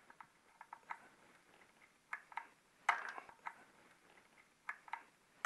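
Small clicks and scrapes of a halogen capsule bulb being handled and pushed into its terminal clips on a garage door opener's circuit board: a string of light ticks, with a longer scrape about three seconds in.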